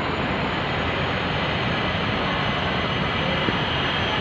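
Light-rail train running on the track close by, a steady rushing rumble with no distinct knocks.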